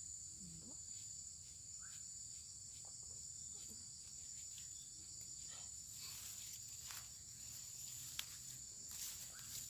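Steady high-pitched chorus of insects in riverside tropical vegetation, a continuous shrill drone, with a few faint clicks, one sharper click about eight seconds in.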